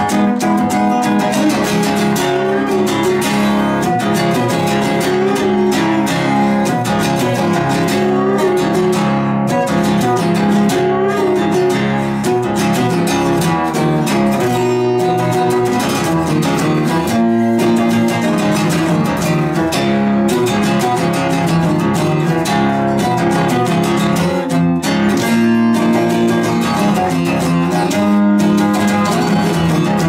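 Solo acoustic guitar playing an instrumental piece, with rhythmic strummed and picked chords.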